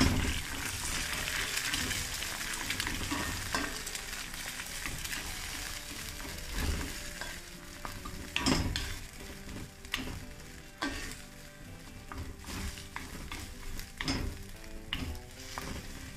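Eggs and chorizo sizzling in hot oil in a pan while a wooden spatula stirs and scrambles them, scraping and knocking against the pan. The sizzle is loudest at first and eases off as the eggs set.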